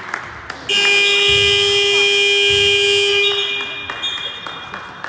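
Gym scoreboard buzzer sounding one steady blast of about two and a half seconds, starting under a second in.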